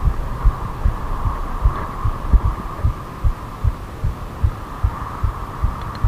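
A hardtail mountain bike rolling along, as picked up by a camera mounted on its handlebar: irregular low thumps, a few a second, over a steady hum.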